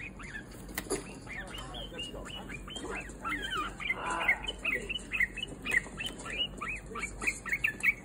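Pet yellow-vented bulbul calling in a quick string of short, bubbly chirps, which come thicker and faster from about three seconds in.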